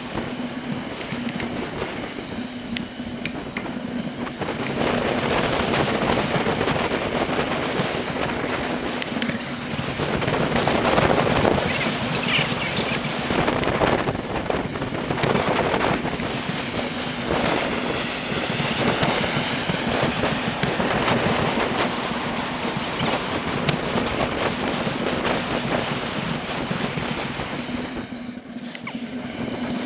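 Wind on the microphone and rolling road noise from an action camera mounted on a bicycle's handlebar while riding, sped up four times, with a steady low hum throughout.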